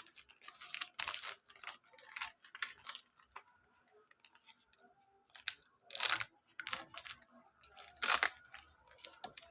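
A Milo powder sachet being bitten and torn open by teeth: faint crinkling and crackling of the packet, with two louder rips about six and eight seconds in.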